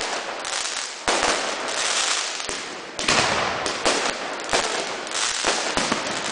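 Fireworks going off close by. A sharp bang about a second in and another at three seconds are each followed by a hissing rush that fades, then comes a run of quick pops and crackles.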